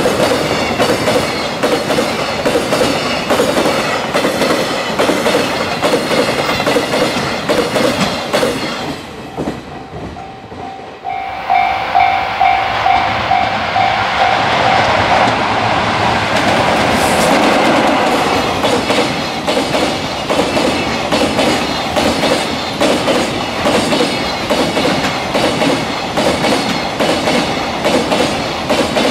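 Container freight trains passing at speed, their wheels clattering rapidly over the rail joints. After a brief quieter gap about ten seconds in, a pulsing high tone sounds for a few seconds as the second train approaches, and its locomotive and container wagons then rush past with the same fast clickety-clack.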